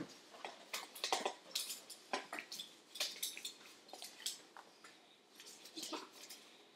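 Kitchen utensils and dishes clinking and scraping, an irregular string of short clicks and knocks.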